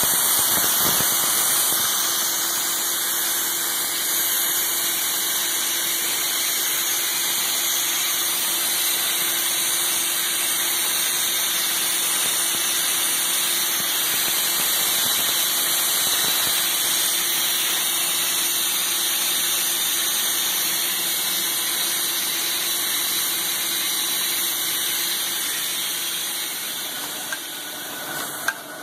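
Moll Regal envelope folder-gluer line running steadily, a constant hiss from its belts, rollers and air with a faint steady hum underneath.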